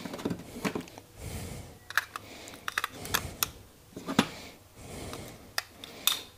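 Irregular sharp clicks and short bursts of rustling as a new heat gun is taken out of its packaging and handled.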